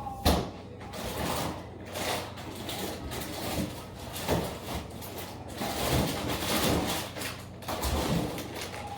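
Kitchen handling sounds: a sharp knock right at the start, then irregular rustling, scraping and light knocks as food and its packaging are handled, over a faint low hum.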